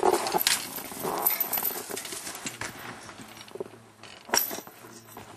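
Footsteps crunching through snow, with scattered knocks and rustles, louder at first and then fading.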